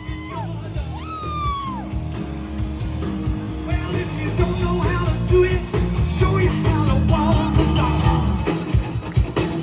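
Live rock band playing: electric guitar, bass guitar and drum kit over a steady beat. A few high sliding notes in the first two seconds, then the full band comes in louder from about four seconds.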